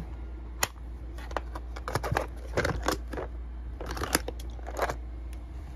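Sharp clicks and short rustles as a vintage mahjong set's case is handled on a cloth, its metal latches clicking.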